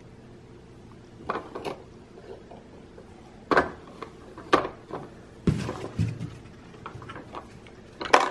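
Small plastic toy pieces being handled and put back into a plastic toy truck: a series of separate clacks and knocks at irregular spacing, a few of them louder.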